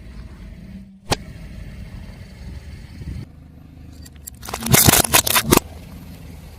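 Car rolling slowly with a low engine and tyre rumble. A sharp click comes about a second in, and about four and a half seconds in a burst of loud cracking snaps follows as the tyre crushes something crunchy.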